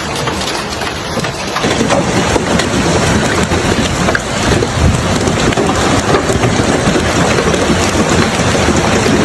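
Heavy rain pouring down as a steady dense hiss. About a second and a half in it becomes louder and fuller.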